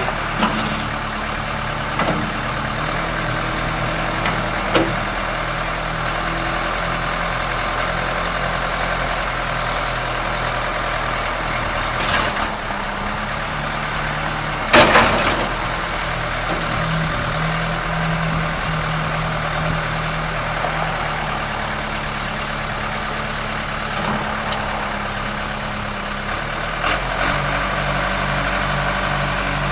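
John Deere 310D backhoe's turbocharged diesel engine running steadily near idle, its note shifting a few times as the engine speed changes. Two short, loud bursts of noise break in about twelve and fifteen seconds in.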